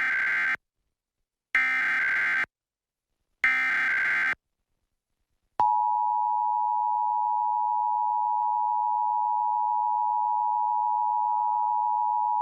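Emergency Alert System test: three roughly one-second bursts of SAME digital header data with short silences between them. About a second later the steady two-tone EAS attention signal (853 and 960 Hz sounding together) begins and holds.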